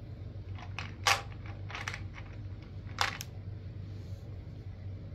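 Small hard plastic clicks and clacks as dice and a plastic toy case are handled, a few scattered over the first two seconds, the loudest about a second in, and a sharp pair about three seconds in.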